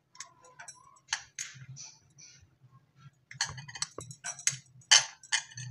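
A dry samosa pastry sheet crackling and rustling under the fingers as it is rolled by hand around potato stuffing. The crackles come in short, irregular bursts, busier in the second half.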